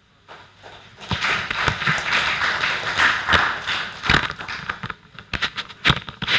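Audience applauding, starting about a second in and thinning to scattered single claps near the end.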